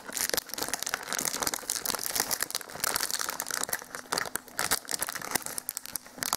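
Clear cellophane gift wrapping crinkling as a hand works at its ribbon to get the package open, a dense run of quick crackles.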